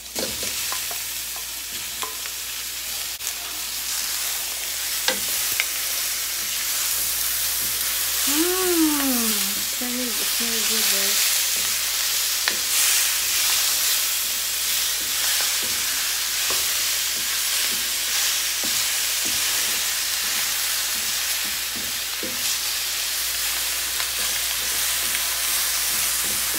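Raw chicken pieces sizzling loudly in hot oil in a wok, the sizzle jumping up as they drop in, while a wooden spatula stirs and knocks against the pan. A brief wavering pitched sound comes about eight seconds in.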